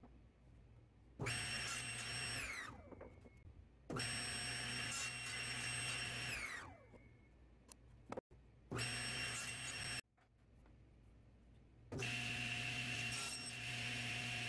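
SawStop table saw running in short bursts, its motor and blade giving a steady whine that starts suddenly and, after most runs, winds down with a falling pitch as the saw is switched off and the blade spins down. This is the saw cutting spline slots in the corners of a mitred box held in a 45° jig.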